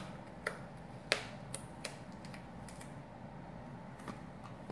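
Light, scattered clicks and ticks of duct tape being handled and pressed onto a cut plastic bottle, the sharpest about a second in.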